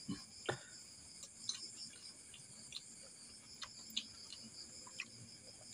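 Steady high-pitched chorus of crickets, with a handful of faint, short crunches from crisp fried chips being chewed.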